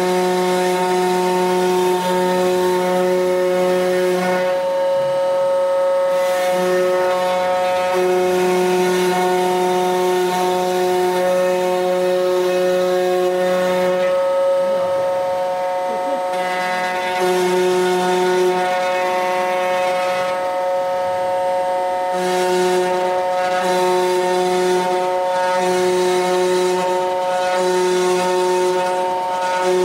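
Desktop CNC wood router running: a steady high-pitched whine, with lower tones that switch on and off every few seconds.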